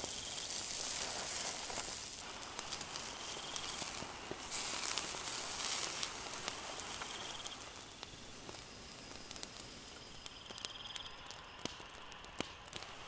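Beef steak sizzling on a wire grill grate over a flaming charcoal fire, with sharp crackles and pops from the burning coals. The sizzle thins out about eight seconds in, leaving scattered crackles.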